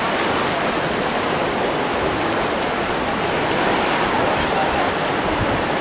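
Small sea waves washing over the shallows at the water's edge: a steady, even rushing of water.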